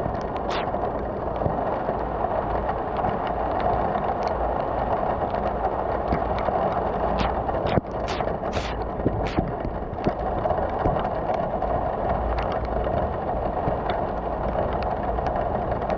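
Steady rain pouring down, with scattered sharp ticks of drops landing close by.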